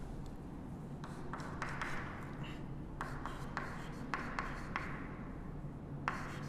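Chalk writing on a chalkboard: a run of sharp taps and short scratchy strokes as a word is written, over a faint steady room hum.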